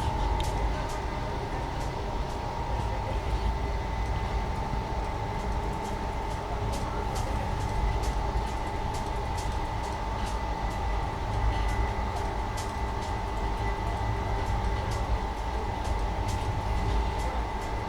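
Indian Railways passenger train running, heard from inside an air-conditioned 2nd AC coach: a steady low rumble with a steady high whine over it and many light, irregular clicks and rattles.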